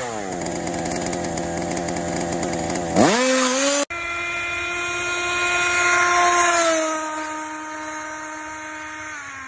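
Engine sound effect for a toy car: a buzzing engine note that drops in pitch and holds steady, revs up sharply about three seconds in and cuts off suddenly, followed by a smoother steady engine note that sags a little in pitch and fades near the end.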